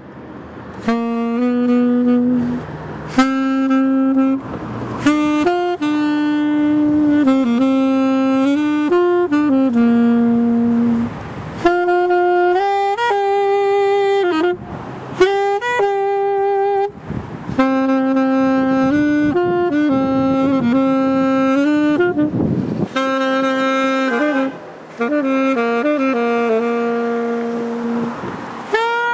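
Unaccompanied saxophone playing a melody of long held notes in phrases, with short breaks between the phrases.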